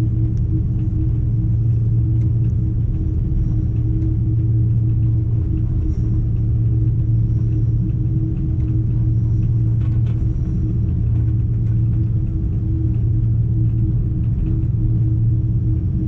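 Airbus A330-200 airliner taxiing, heard from inside the cabin by the wing: a steady low rumble from the jet engines with a steady hum over it.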